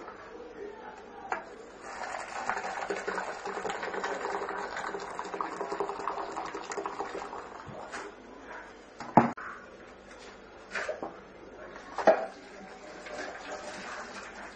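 Water pouring into a metal pot of rice, a steady splashing run from about two seconds in for some six seconds. Then two sharp clanks of the pot, about nine and twelve seconds in, the loudest sounds here.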